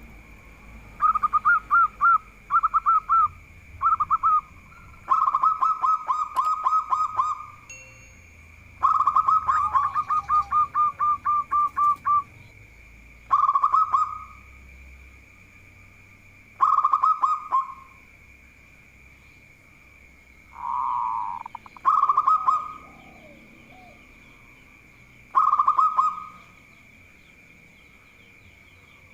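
Zebra dove (perkutut) singing its cooing song in about eight bouts of fast, evenly repeated notes, with pauses of a second or more between them.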